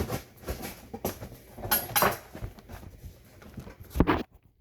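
Cardboard box and packing material being handled and pulled about, with irregular rustling, crinkling and small knocks, and a louder knock about four seconds in.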